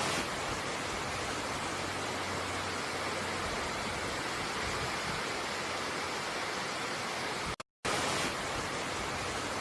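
Flood-swollen river rushing, a steady, dense roar of water. It breaks off for a moment near the end and resumes unchanged.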